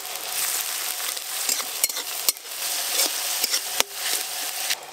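Chopped onion and crushed garlic sizzling in hot mustard oil in a metal kadai, stirred with a spatula that scrapes and knocks against the pan several times.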